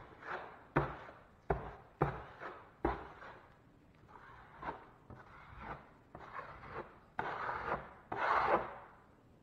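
Drywall knife scraping over a wet patch of hot mud (setting-type joint compound) in short strokes, each starting with a sharp tap of the blade on the wall, slicking the second coat smooth. Two longer, louder scrapes come near the end.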